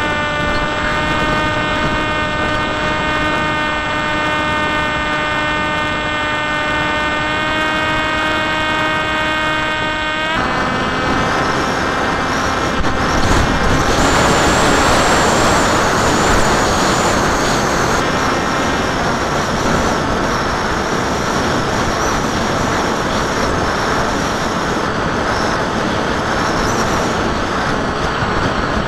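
Electric motor and propeller of a Popwing FPV flying wing, heard through its onboard camera: a steady whine that drops away about ten seconds in as the throttle comes back. After that, rushing wind takes over and grows louder for several seconds while the wing banks steeply.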